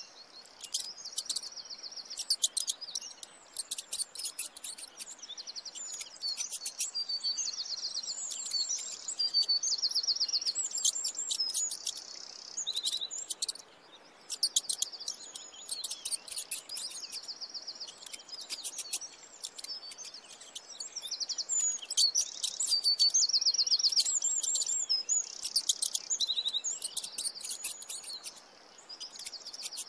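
Small songbirds singing: repeated phrases of high, rapid trills and chirps with quick ticking notes, pausing briefly now and then.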